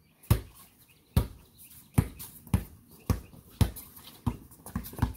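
Basketball being dribbled on a concrete driveway: a steady run of about eight bounces, roughly one every half second to second.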